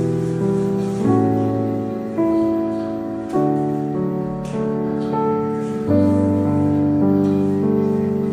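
Piano music: slow, held chords, changing about once a second.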